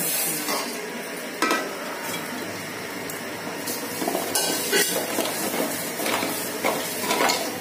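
Sugar poured into an aluminium pot of hot ghee, nuts and spices, then stirred with a wooden spoon that scrapes and knocks against the pot, over a light sizzle from the hot mixture.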